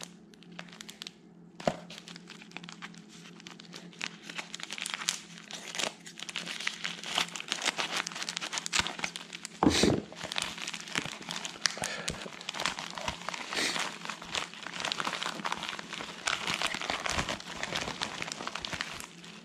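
Packing material crinkling and rustling as a coin package is unwrapped by hand, with scattered small clicks and one sharper knock about ten seconds in.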